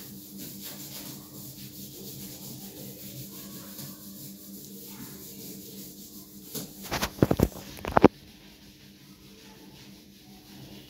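Whiteboard eraser rubbing across a whiteboard in repeated wiping strokes. About seven seconds in there is a quick cluster of loud, sharp knocks.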